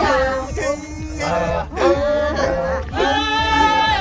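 Maasai men and women singing together without instruments, a group song in short repeated phrases with held notes.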